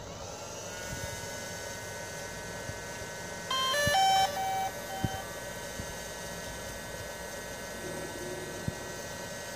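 DJI Phantom 4 Pro powering up. High steady whine tones set in as the camera gimbal's motors start and it runs its start-up self-check. About three and a half seconds in, the drone plays a quick rising beep tune, followed by three short beeps.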